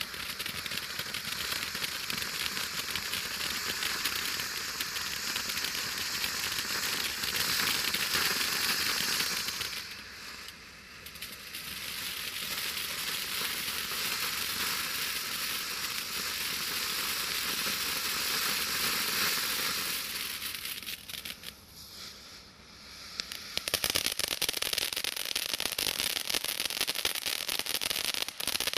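Weco Big Apple firework fountain spraying sparks with a steady loud hiss. The hiss dips twice as the effects change, then gives way to dense crackling near the end.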